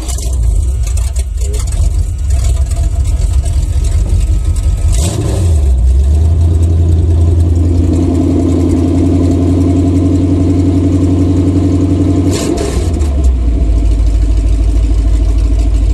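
Chevrolet 454 big-block V8 catching and running loudly on bare headers with no exhaust pipes or mufflers fitted. About five seconds in the engine speed rises and holds at a faster idle, then settles back to a steady idle about twelve seconds in.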